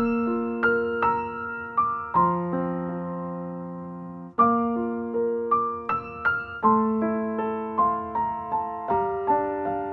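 Background music: a slow, gentle piano piece, with notes and chords struck every second or so and left to ring out.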